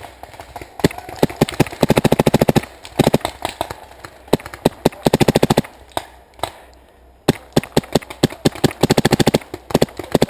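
Paintball markers firing: scattered single shots and several rapid strings of shots in quick succession, with a short lull a little past the middle.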